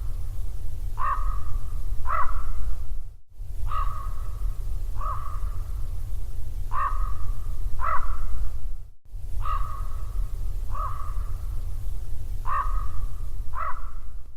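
Crows cawing: short harsh calls, about four every three seconds, over a steady low rumble. The sound cuts out briefly twice.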